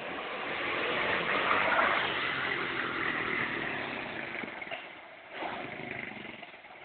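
Engine of a small motor vehicle running as it drives off, growing louder to a peak about two seconds in and then fading with distance.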